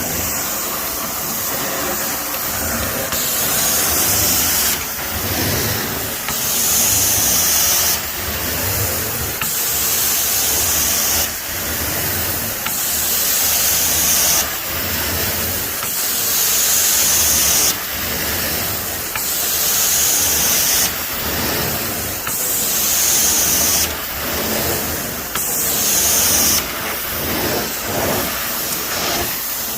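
Carpet-cleaning wand running off a Mytee Escape truckmount during hot-water extraction: a steady vacuum hiss, with louder spray-and-suction strokes about every three seconds.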